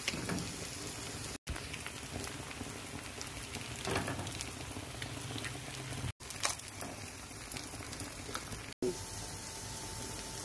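Eggs and tomato-onion sauce frying in a nonstick pan: a steady low sizzle with a few light scrapes of a wooden spoon. The sound drops out completely three times, briefly, and a faint steady tone joins after the last drop-out.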